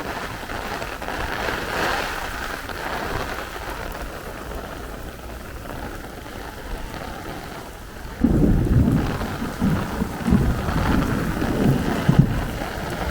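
Heavy rain pouring down in a thunderstorm, with a sudden loud, uneven low rumble coming in about eight seconds in and carrying on.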